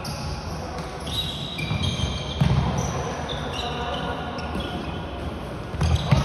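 Floorball players' indoor shoes squeaking on a sports-hall floor in short repeated squeaks as they run and turn, with heavier thuds about two and a half seconds in and near the end.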